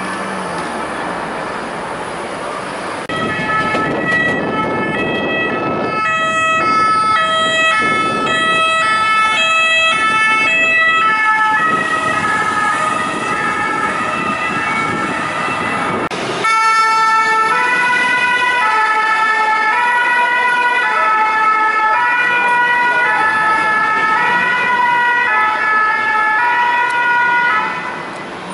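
French two-tone emergency sirens alternating between two pitches over city traffic. The first siren starts about three seconds in. After a sudden change near the middle, a different two-tone siren takes over and stops shortly before the end.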